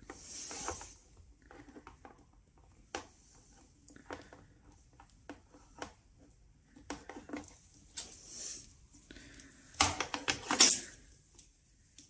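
A vacuum cleaner's power cable being coiled by hand and wrapped around the hooks on the cleaner's plastic head: rustling and light clicks and taps, with a cluster of louder knocks about ten seconds in.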